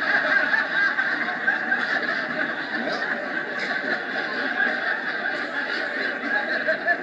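Audience laughter on a vinyl comedy record, a long steady wave of laughing in response to a punchline, heard through a record player's speaker.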